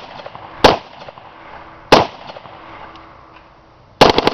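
5.56 mm AR-15 rifle firing two single shots about a second and a half apart, each with an echo trailing off, then breaking into a rapid full-auto burst near the end.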